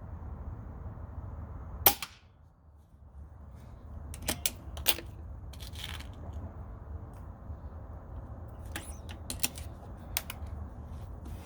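Weihrauch HW97 underlever air rifle with a Vortek PG3 gas-piston kit firing one shot at 14 ft-lbs: a single sharp crack about two seconds in, without spring buzz. Several lighter mechanical clicks follow in two groups as the rifle is cocked and loaded.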